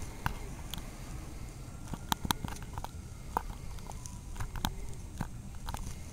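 Scattered, irregular sharp crunches and clicks over a steady low rumble of wind on the microphone during a blizzard.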